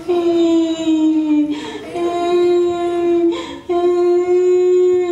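A singing voice holds three long notes in a row at about the same pitch, each about a second and a half, the first one sliding slightly down.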